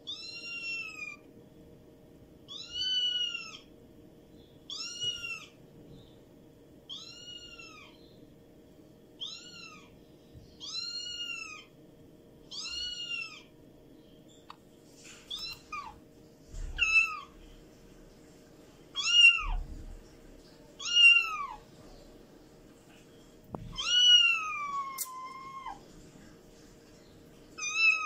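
Kitten meowing over and over, high-pitched calls that each rise then fall in pitch, about one every two seconds. In the second half the meows come faster, shorter and louder, with one longer, drawn-out falling meow near the end.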